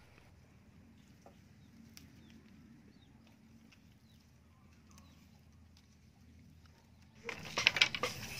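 Mostly faint outdoor quiet with a few soft bird chirps. Near the end, a quick run of sharp cracks and knocks starts as bamboo sticks are handled and worked on the ground.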